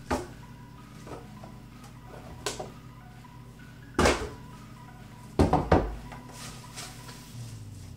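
Scattered knocks and clunks of objects being handled, the loudest about four seconds in and a quick cluster about five and a half seconds in, over a low steady hum.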